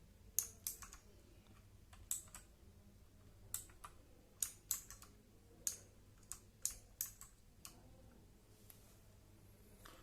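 Redgear MK853 mechanical keyboard's blue clicky switches, keys pressed one at a time: a scattered series of sharp clicks in small uneven groups, stopping about eight seconds in except for one faint click near the end.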